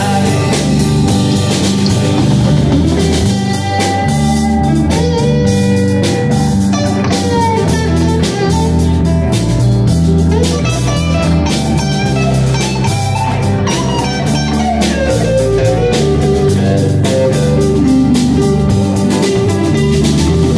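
Live blues band playing an instrumental passage: an electric guitar lead with bent notes over drum kit, bass guitar and keyboards.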